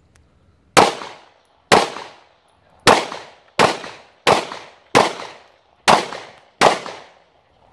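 Eight handgun shots fired at an uneven pace, roughly one every 0.7 to 1.1 seconds, each followed by a short echo.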